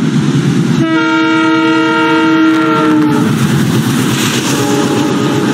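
Passing train with a steady rumble, and its horn blowing one long note from about a second in, dropping slightly in pitch as it ends about three seconds in.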